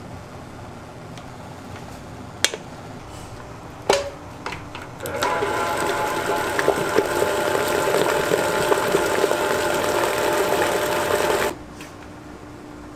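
Two sharp knocks, then a small electric motor whirring steadily for about six seconds before cutting off suddenly.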